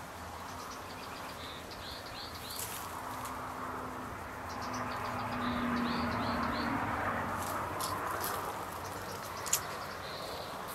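Small birds chirping in short runs of quick high notes, twice at length and once briefly near the end, over a steady background hiss.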